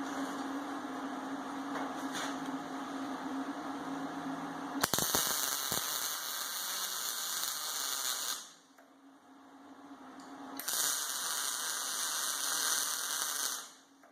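Snap-on MIG 160i MIG welder laying two weld beads, each a dense, steady crackle lasting about three seconds, with a short pause between them. The beads join quarter-inch round-stock legs to a thick round-stock body. Before the first bead there is a steady hum.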